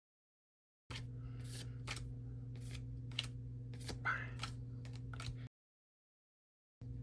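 Trading cards and foil packs being handled: a quick string of light scrapes, flicks and clicks over a steady low electrical hum, cut off abruptly to dead silence twice.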